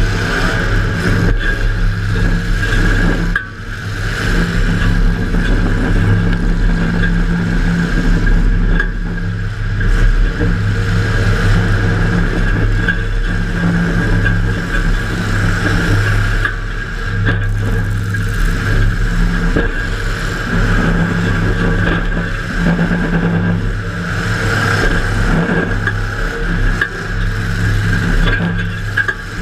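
Demolition derby car's engine running hard throughout, heard from inside the car, its pitch holding fairly steady with brief dips, and a few sharp knocks from hits or the body rattling.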